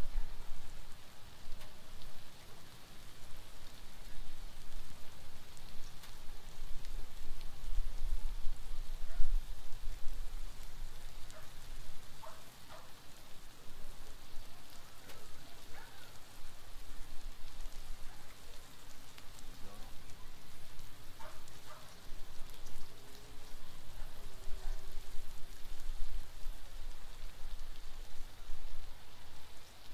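Steaks, onions and peppers sizzling steadily on a Blackstone flat-top griddle, with many small crackles and pops of fat.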